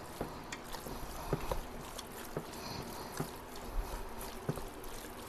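A meat-shredding claw pulling and stirring sauced pulled pork in a stainless steel Instant Pot inner pot. It makes soft wet squishing, with irregular light clicks and scrapes as the claw touches the pot.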